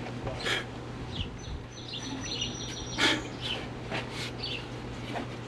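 Birds chirping in short scattered calls, with a few sharp clicks as a fitting is tightened down, over a steady low hum.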